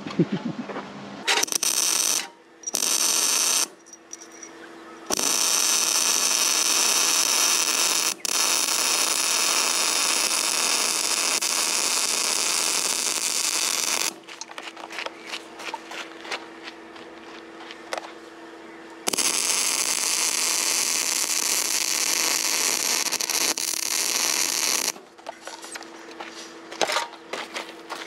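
MIG welder arc crackling and hissing in runs: two short bursts in the first few seconds, then a long bead of about nine seconds with a brief break, and another of about six seconds near the end. Quieter crackles and a steady low hum fill the gaps between runs.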